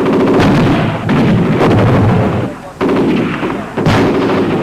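Mortar bombs exploding: three loud blasts, each drawn out for a second or more, with a sharp crack about four seconds in.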